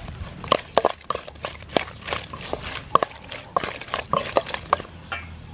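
Raw shrimp being mixed with seasonings in a stainless steel bowl with a spoon: irregular wet squishing and clicks of the spoon against the metal bowl, dying away near the end.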